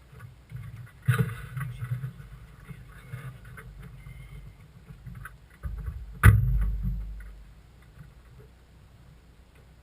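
Racing car's engine idling steadily at low revs, with two sharp loud knocks, the first about a second in and a louder one about six seconds in.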